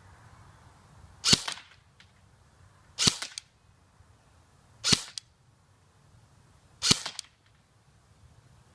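Airsoft gun firing four single shots, about two seconds apart, each sharp crack followed a fraction of a second later by a smaller click.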